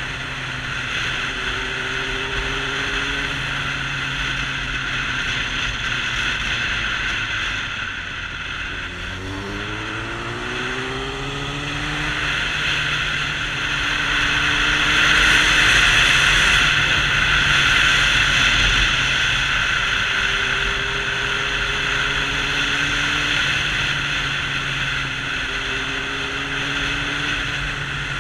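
Sport motorcycle engine running at road speed under heavy wind rush on the microphone. About nine seconds in, the engine note drops and then climbs as the bike accelerates, and the wind rush grows loudest a few seconds later.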